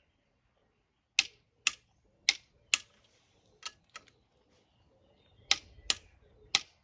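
Click-type torque wrench clicking off as engine mount bolts are tightened to 55 Nm: nine sharp clicks in three groups, four loud ones about half a second apart, two fainter ones, then three more loud ones near the end.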